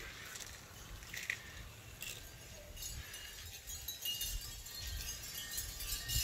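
Faint low wind rumble on the microphone with a few light clicks and ticks from small die-cast cars rolling down a plastic gravity-racing track.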